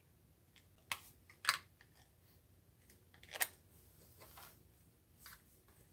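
A few faint, short scrapes and taps of a paintbrush working oil paint on a palette: three sharper ones in the first few seconds, then softer ones.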